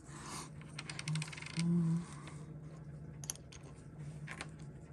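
Small metal clicks and a quick run of fine ticking as a stripped watch main plate is handled in its metal movement holder, with a short low hum, the loudest sound, about one and a half seconds in.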